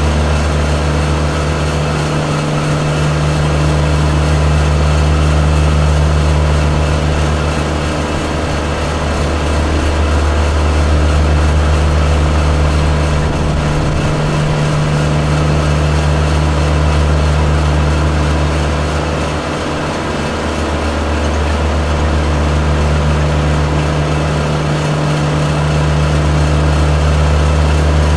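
Kubota L1-452 tractor's diesel engine running steadily under load while it drives a Trimax Pro-Cut S4 rotary mower, heard from the driver's seat. The low drone dips briefly about four times.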